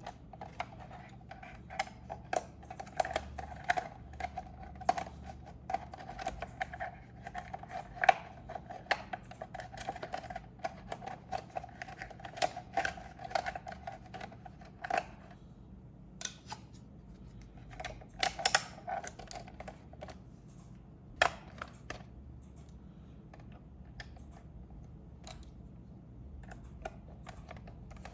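Irregular plastic clicks and taps from hands handling an RC toy car and its packaging, with a steady hum under the first half that stops about 15 seconds in and returns briefly near 18 seconds.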